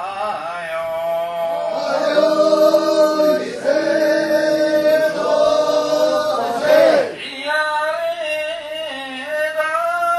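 A group of voices singing a festival chant in long, drawn-out notes, phrase after phrase with brief pauses between.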